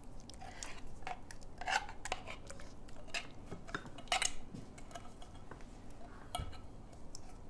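Light, irregular clinks and scrapes of a utensil and can against a dish as condensed cream soup is emptied into a bowl of water, with a few louder knocks.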